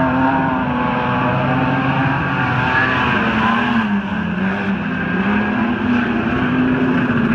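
Streetstock race cars' engines running hard at high revs, the pitch dipping about four seconds in and climbing again.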